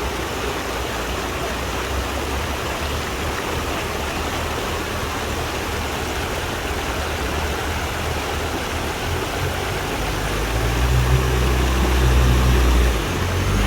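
Rushing waterfall water with an off-road 4x4 rig's engine running low underneath. About ten seconds in the engine gets much louder, dipping briefly near the end.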